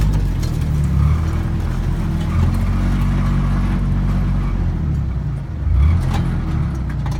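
A vehicle engine running under load, steady with a surge a little before six seconds in, as the vehicle sits high-centered on rough ground and tries to drive free.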